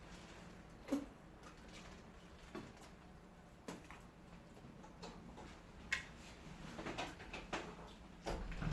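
Faint, scattered clicks and light knocks, a few seconds apart, over a low background.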